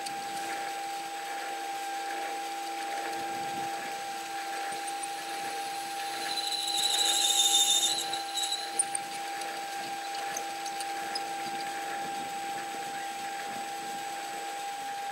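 Metal lathe running with a steady whine while an adjustable reamer set to 1/4 inch cuts through a phosphor bronze bush. About six and a half seconds in, a high-pitched squeal rises for about a second and a half, followed by a few light ticks.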